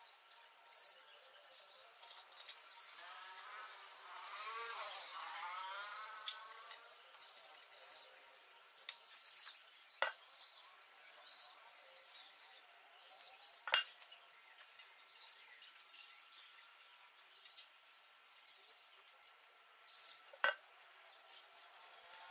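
Short high squeaks repeating about once a second, with three sharp metallic clicks spread through the stretch, like small metal parts knocking together during assembly.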